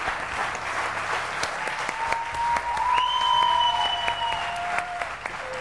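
Studio audience applauding steadily. In the middle, a few long, steady, held tones sound over the clapping.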